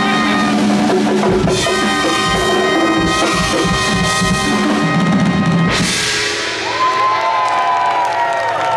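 Live show music: held chords give way to a drum-kit build with a drum roll, ending on a crash about six seconds in. A long falling whoop and other cheering voices follow the crash.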